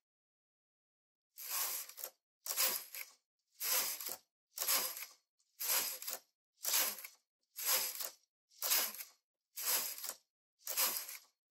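Brother KH811 knitting machine carriage pushed back and forth across the needle bed, knitting row after row: each pass is a short, noisy slide about half a second long, roughly one pass a second, ten in all, starting about a second and a half in.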